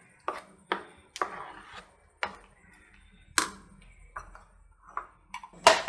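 Metal spoon stirring a thick chilli and tomato spice paste in a ceramic bowl, with irregular clinks and taps of the spoon against the bowl and soft scraping between them.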